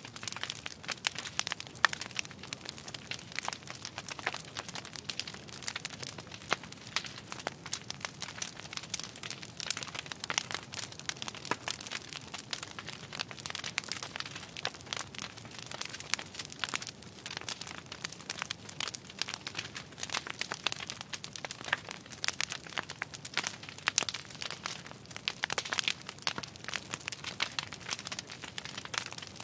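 Wood fires crackling, a dense, irregular run of small snaps and pops with no steady tone underneath.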